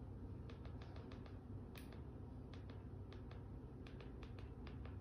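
A run of light, irregular clicks, about a dozen, with a sharper one near two seconds in, over a steady low hum.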